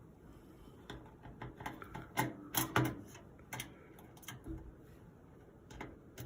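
Irregular small clicks and taps of a Phillips screwdriver and motherboard screws being handled and driven into the standoffs, starting about a second in and loudest two to three seconds in.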